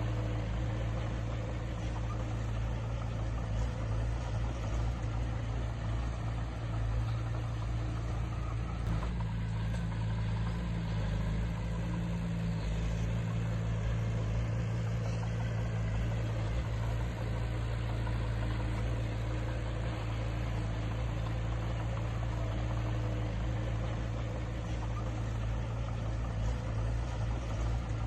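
Heavy earthmoving machine's diesel engine running steadily, a low even drone.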